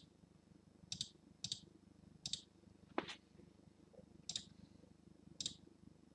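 About six scattered sharp computer clicks at irregular intervals, over a faint low hum.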